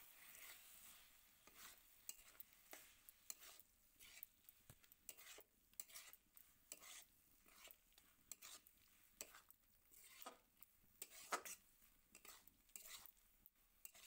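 Metal spatula stirring banana flower and potato curry in a metal kadai, with irregular scrapes and clinks against the pan over a faint sizzle.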